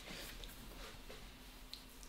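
Faint rubbing of hands on skin and hair during a head massage, with a few light soft ticks and a steady low hum underneath.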